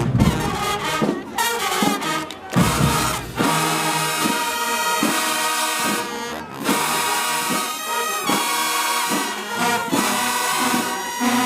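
Marching band playing: the brass section of trumpets and trombones sounds loud, held chords in a pulsing rhythm, with heavy drums under it for the first three seconds or so.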